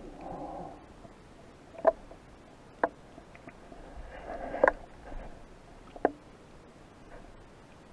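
Muffled underwater sound heard through a camera's waterproof housing while freediving: soft swishes of water movement, with four sharp clicks spread irregularly through it.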